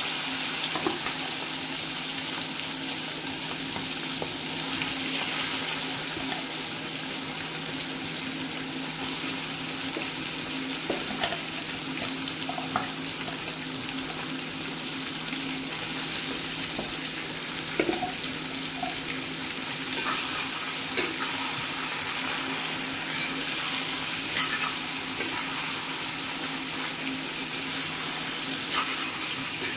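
Marinated mutton frying in hot oil in a cast-iron kadai: a steady sizzle, broken now and then by the scrape and knock of a ladle stirring the meat.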